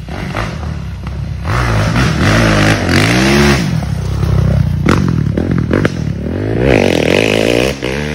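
A 2016 Kawasaki KX450F's single-cylinder four-stroke engine running, revved up and back down twice, with a consistent screeching noise from the motor that the mechanic suspects comes from a bent valve or a cracked piston or piston ring in the top end.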